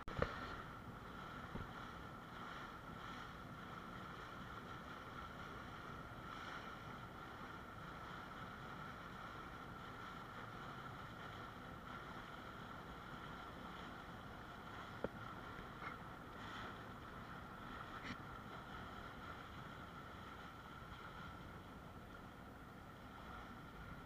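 Faint, steady hum of a small boat's engine, with water noise and a few light knocks.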